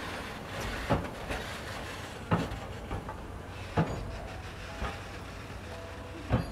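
Wheels of the C11 207 steam locomotive and its brake van rolling at walking pace, knocking sharply over rail joints every second or so over a steady low rumble.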